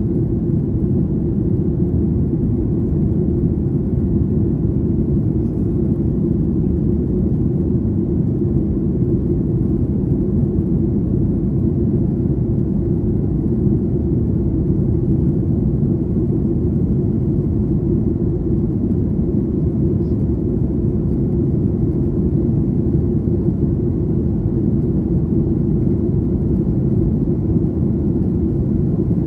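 Steady low rumble of a Boeing 737-800 in flight, heard inside the cabin: the CFM56-7B engines and the airflow, with a constant hum running through it.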